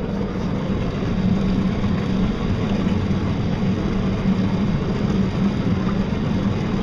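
Small electric boat motor humming steadily while the boat is under way, with water rushing along the hull and wind on the microphone.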